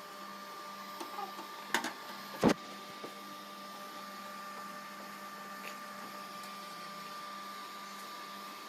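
A steady electrical hum with a thin, high, unwavering whine. Two sharp knocks come about two seconds in.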